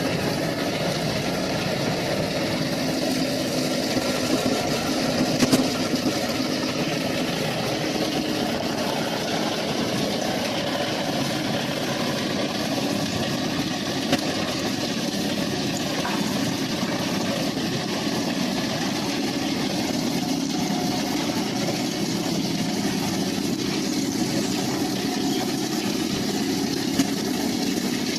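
An engine running steadily, with a few short knocks standing out along the way.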